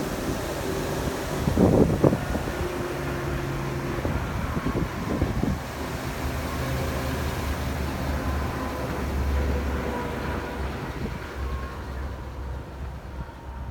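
A motor vehicle running with a steady low rumble, with a few knocks about two seconds in and wind noise on the microphone.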